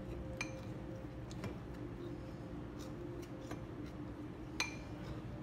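A metal utensil clinking and scraping against a ceramic bowl while pancake batter is stirred, a few sharp taps scattered through, the clearest about half a second in and near the end, over a steady low hum.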